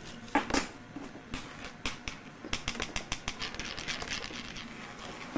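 A kitten pawing and nosing at crumpled paper and a plastic bag: a run of sharp crinkling and scratching crackles, with a louder crackle about half a second in and the clicks coming thickest in the middle.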